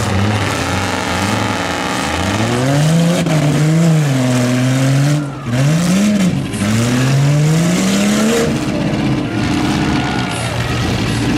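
Demolition derby pickup truck engines revving hard, their pitch rising and falling over and over as the trucks accelerate and back off, with more than one engine going at once.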